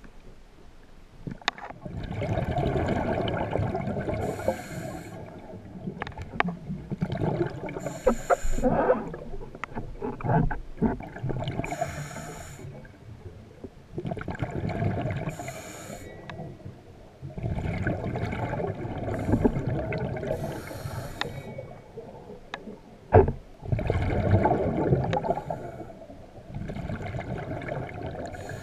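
Scuba diver's regulator breathing heard underwater: rushes of exhaled bubbles gurgling and rumbling every few seconds, with shorter hissing breaths between them. A single sharp knock comes about two-thirds of the way through.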